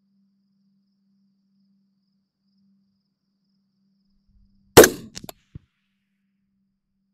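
A single rifle shot from a 5.56 AR-15-pattern rifle (14.5-inch barrel, 77-grain match ammunition) about five seconds in, loud and sharp with a quick decay. A few much quieter short clicks follow within the next second.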